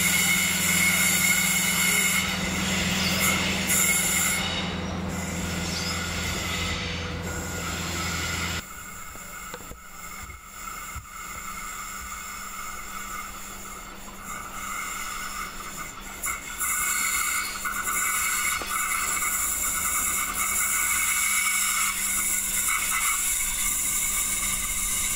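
Comeng 3000 series diesel railcar pulling away with a steady low engine hum and steady high-pitched whines. The sound cuts off abruptly about nine seconds in, then another railcar is heard approaching, growing louder from about two-thirds of the way through with a high-pitched whine.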